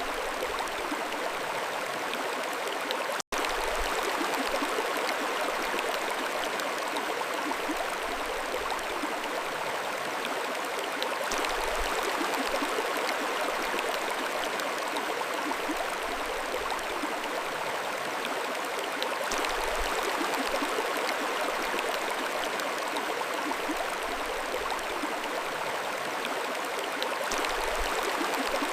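A mountain stream flowing steadily, its water rushing and babbling in an even wash. The sound cuts out for an instant about three seconds in.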